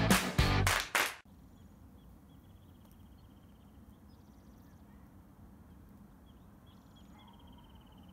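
Guitar intro music cuts off suddenly about a second in, leaving faint evening ambience. A cricket trills faintly and high-pitched twice, each trill a rapid pulsing lasting about a second and a half.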